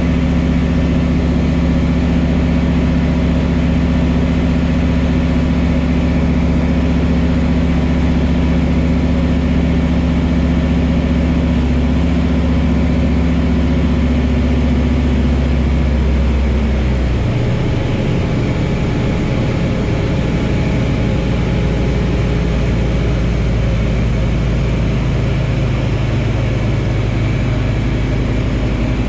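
Pipistrel Virus light aircraft's Rotax 912 flat-four engine and propeller droning steadily, heard inside the cockpit. A little over halfway through, the engine note steps down to a lower pitch and gets slightly quieter as the engine speed drops.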